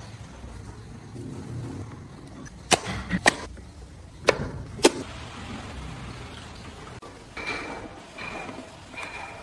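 Woodworking on a carved wooden piece: four sharp knocks of a tool against wood, then three short scraping strokes near the end.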